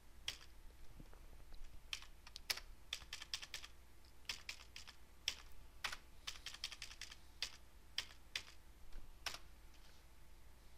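Typing on a computer keyboard: faint key presses in quick irregular runs with short pauses between them, over a low steady hum.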